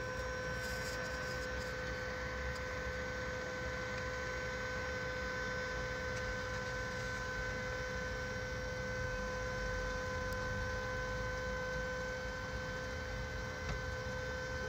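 Steady electrical-sounding hum: a constant tone with evenly spaced overtones over a low, even rumble.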